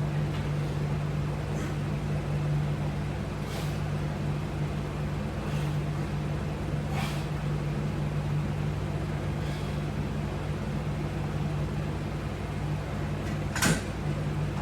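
Steady low mechanical hum, like a fan or appliance running, with a few faint clicks and one sharper click near the end.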